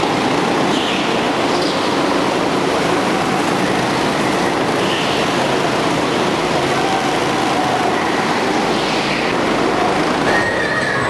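Several go-kart engines running on an indoor track, a loud, steady, dense mechanical noise echoing in the hall.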